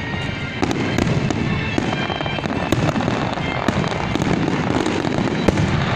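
Fireworks display going off as a dense, continuous barrage of bangs, with sharp reports scattered all through and a louder single bang about five and a half seconds in.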